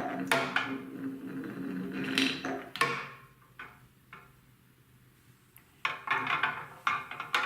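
Marbles clattering down plastic TrixTrack wave-slope marble-run track in quick clicks and knocks. They stop for about two and a half seconds in the middle, then start again.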